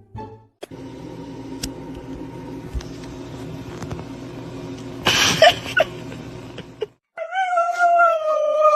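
Dog howling: one long drawn-out cry that slowly falls in pitch, starting about seven seconds in. Before it, a steady hum with a short harsh outburst about five seconds in.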